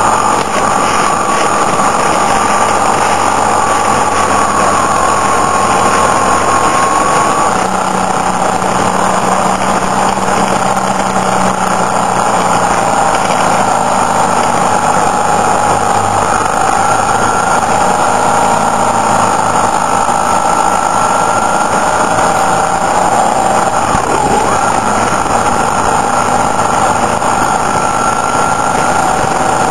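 Motorcycle engine running steadily at road speed under heavy wind rush, heard from on board the bike; its pitch rises and falls slightly as the speed changes.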